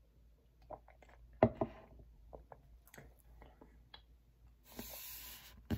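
A person gulping and swallowing milk from a cup. Small wet clicks of the mouth and throat come through, with a louder gulp about a second and a half in, then a short rush of noise near the end.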